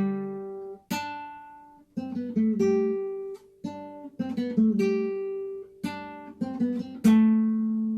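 Acoustic guitar strings plucked and strummed unevenly: a loose run of about ten single notes and chords, each ringing out and fading.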